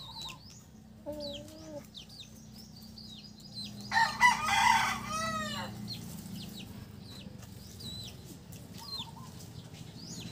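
A rooster crowing once, about four seconds in, over repeated short high chirps of small birds.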